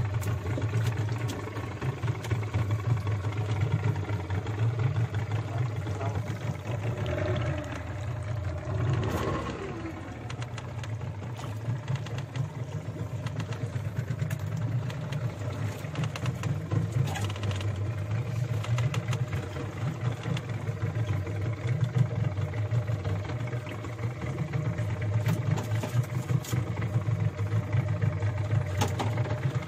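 A fishing boat's engine running steadily with a low, even throb, and a few light knocks on deck.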